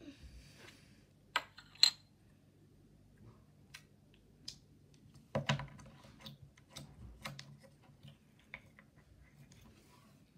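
Small plastic container and clear plastic cup handled on a wooden tabletop: a soft rustle, then two sharp plastic clicks about a second and a half and two seconds in, a cluster of knocks about halfway, and scattered light ticks and taps.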